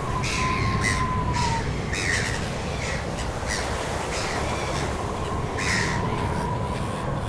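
Crows cawing repeatedly, short harsh calls coming every half second to a second, over a steady low rumble and a faint steady tone.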